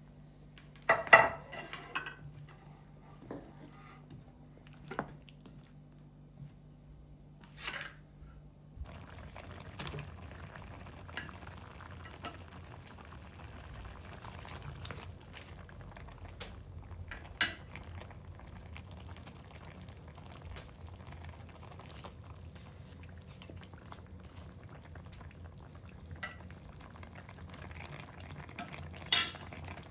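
Pot and utensil clinks, then from about nine seconds in a steady bubbling of a pot of chicken soup on the boil, with scattered clinks of a spoon or lid over it.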